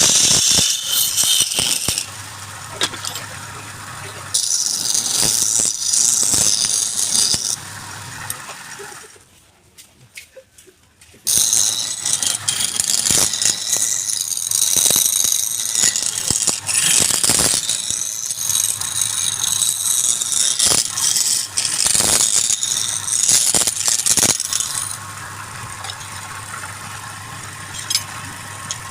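Wood lathe at work: a tool cutting the spinning wood gives a loud, hissing, rattling scrape in spells of a few seconds. Between the spells there is a steadier, quieter motor hum. The sound drops almost to silence for about two seconds a third of the way in.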